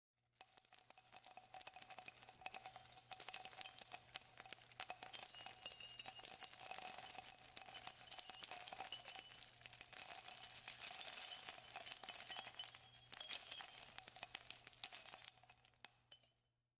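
Small bells jingling steadily, a dense metallic shimmer of ringing and tiny clicks, dipping briefly twice and fading out just before the end.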